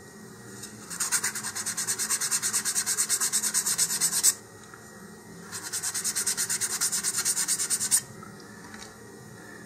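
100-grit sandpaper rubbed by hand around the edge of a cardboard centering ring, beveling it: two bouts of quick back-and-forth strokes, about six a second, with a short pause between.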